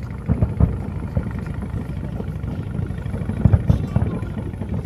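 Fireworks bursting at a distance: a few low booms, two near the start and a quick cluster of three about three and a half seconds in, over a steady low rumble.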